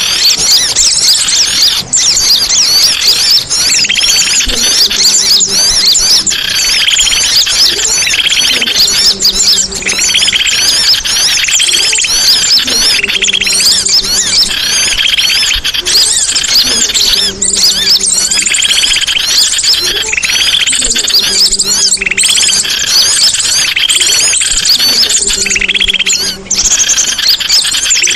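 Songbirds chirping and twittering densely and without a break, with a lower repeated call coming back about every two seconds.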